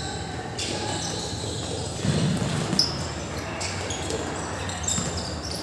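Football being kicked and bouncing during match play, with players' feet scuffing. A louder thud a little over two seconds in, and a short sharp squeak a moment later.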